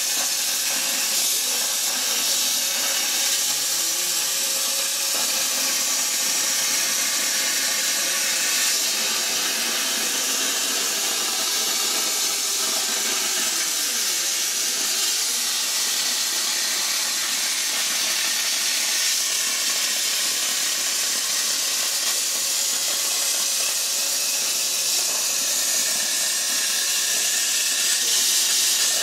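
R-Tech CNC plasma cutter torch cutting through 5 mm steel plate: a loud, steady hiss from the plasma arc and its air jet.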